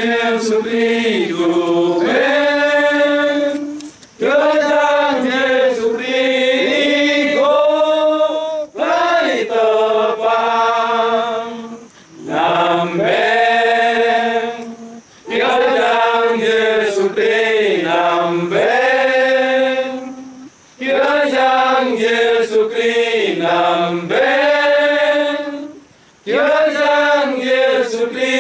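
A group of men singing a Christian hymn to Jesus together without accompaniment, in phrases a few seconds long, each broken by a short pause for breath.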